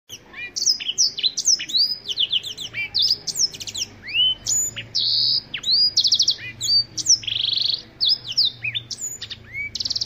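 Black-throated canary singing a long, fast, varied song of high whistled notes that sweep up and down, mixed with rapid buzzy trills, with hardly a break.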